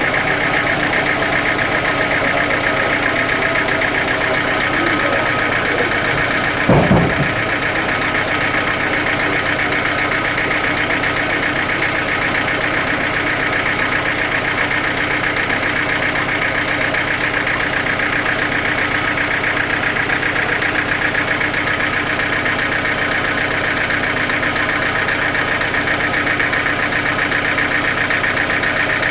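Sawmill machinery running steadily with an engine-like drone, and one short thump about seven seconds in.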